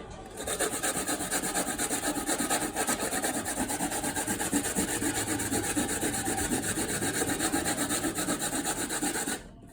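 Coconut flesh being rubbed by hand against a grater: rapid, steady rasping strokes that stop abruptly shortly before the end.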